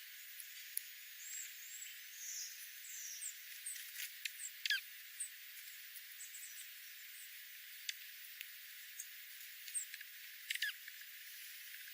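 Wild birds calling: scattered short, high chirps and two louder calls that slide downward in pitch, one near the middle and one near the end, over a faint steady hiss.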